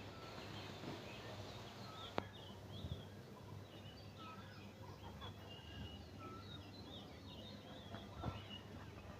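Several birds chirping and whistling in short, overlapping calls, over a steady low hum, with a sharp click about two seconds in.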